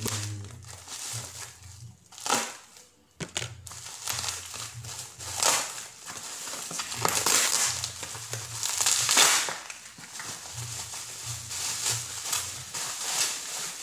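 Plastic bubble wrap and packaging crinkling and being crushed by hand as a parcel is unwrapped, in irregular rustling bursts with a few sharp cracks early on.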